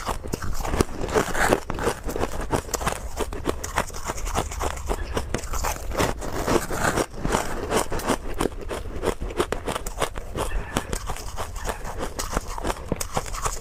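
Hard frozen crushed ice being bitten and chewed close to a lapel microphone: a dense, continuous run of crackling crunches.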